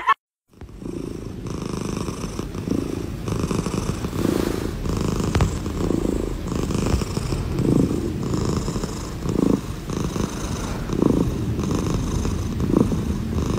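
Domestic cat purring while being stroked, a steady rumble that swells and fades with each breath.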